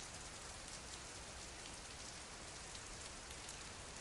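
Steady rain falling, an even hiss with a patter of small droplet ticks.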